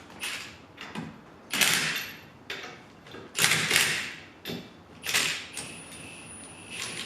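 Hand-tool and parts-handling noises from fitting wheel spacers and wheels to a car: a series of short, sharp mechanical bursts, loudest about one and a half and three and a half seconds in.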